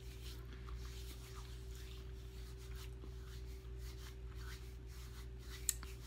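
Faint crunching and chewing of a small crunchy rye breadstick over a steady low electrical hum, with one sharp click near the end.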